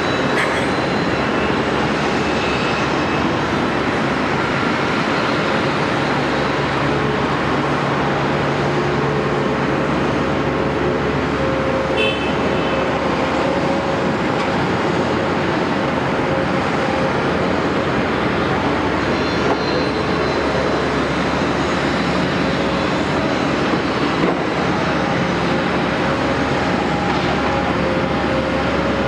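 Caterpillar 329E excavator running steadily, with a few short clanks and knocks over the engine noise.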